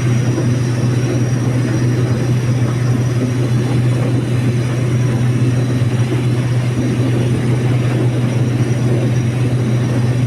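Combine harvester running steadily at work, a loud unbroken engine drone with a deep hum under the noise of the machinery.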